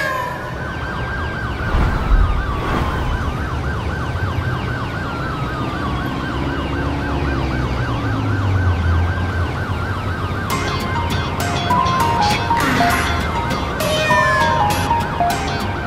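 Siren sound effect wailing over a low drone, with fast repeated yelping sweeps and slower long rises and falls. About ten seconds in, an electronic beat with stepped synth notes comes in under the siren.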